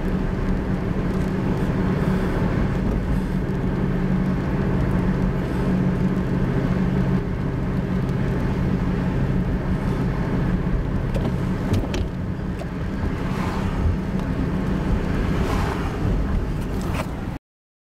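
A car driving: steady engine hum and road noise, cutting off suddenly near the end.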